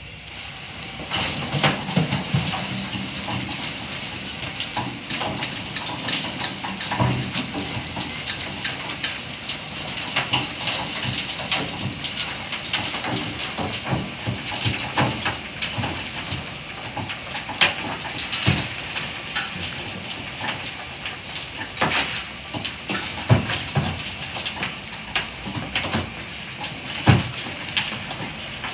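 PKP class Ol49 steam locomotive standing in steam with a steady hiss, with scattered metallic clanks and knocks.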